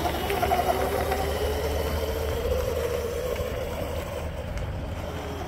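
Small children's go-kart's motor whining as the kart drives off, over a low rumble, fading as it moves away.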